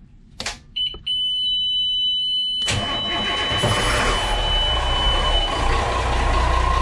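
A steady high electronic warning beep sounds at the helm. About two and a half seconds in, a Caterpillar inboard marine diesel starts and settles into a steady idle. The beep cuts out a few seconds after the engine catches, as the oil pressure comes up.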